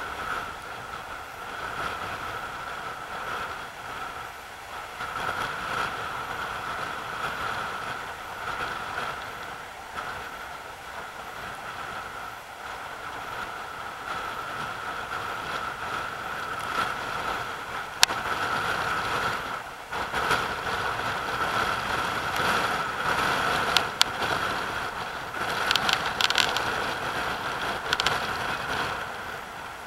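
Rough surf surging and breaking around rocks: a steady rush of churning sea water, with a few sharp clicks in the second half.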